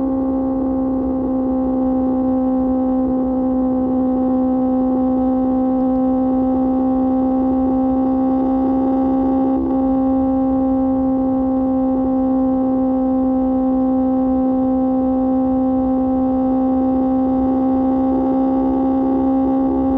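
QJ Motor SRK600 inline-four engine with an SC-Project exhaust, held at constant high revs while cruising, giving a loud, steady droning note that does not change pitch. Wind rumble runs underneath.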